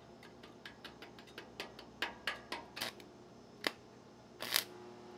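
Stick welder arc being struck on the steel receiver hitch: a quick run of ticks that grows louder, then short crackling bursts of arc, the longest and loudest about four and a half seconds in.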